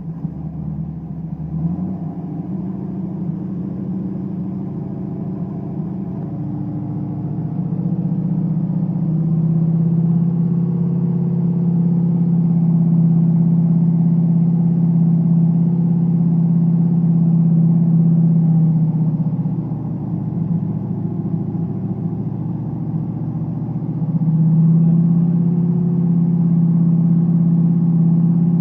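Chevrolet 350 small-block V8 running at steady revs. It grows louder about eight seconds in, eases off briefly around twenty seconds, then picks back up.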